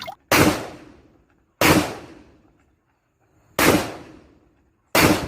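Four gunshots, one to two seconds apart. Each is a sharp crack with a tail that dies away over about a second, and there is dead silence between them.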